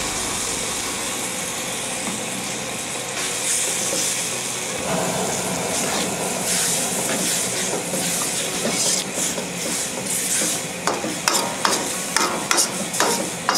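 Sauce of onions, garlic, ginger, chillies, sweet soy sauce and coconut milk sizzling in a hot wok. In the last few seconds a utensil stirs it, knocking and scraping against the wok several times.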